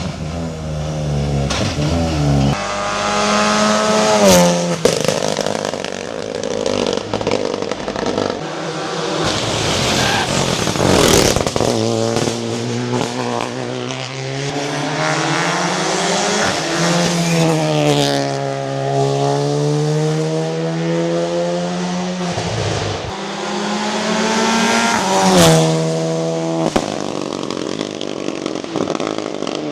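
Renault Clio Rally3 rally car driven hard: the engine revs up and down again and again, its pitch climbing and dropping with the gear changes. There are sharp cracks about 4, 11 and 25 seconds in.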